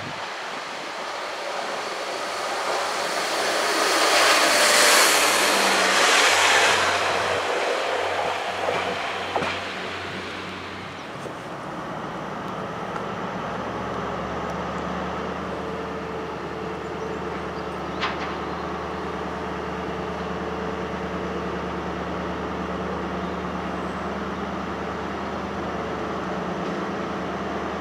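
A Pacer diesel railbus passes close, its rumble and wheel noise building to a peak about five seconds in and dying away by about eleven seconds. Then comes the steady low diesel drone of an HST (InterCity 125) Class 43 power car creeping slowly towards the platform, with one sharp click about two-thirds of the way through.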